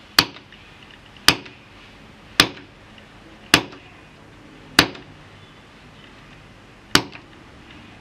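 Small hammer striking the top of a hand-held metal chisel punch, six sharp knocks about a second apart with a longer pause before the last. This is the traditional way of punching a shadow-puppet design through the sheet.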